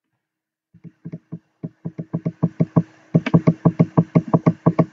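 A rapid, regular series of sharp taps or knocks, starting about a second in and speeding up to about seven a second, over a faint steady hum.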